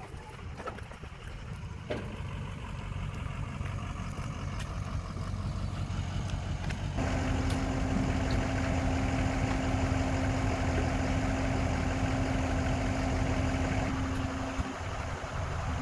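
Heavy engine running, growing louder over the first several seconds, then holding steady with a constant hum from about seven seconds in that shifts slightly in pitch near the end.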